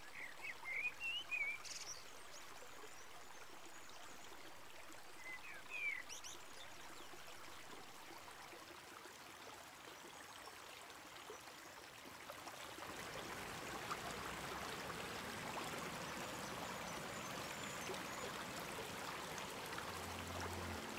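River water rushing steadily, with a few short chirps in the first six seconds. About two-thirds through, the rushing grows louder and fuller, like water pouring over a weir.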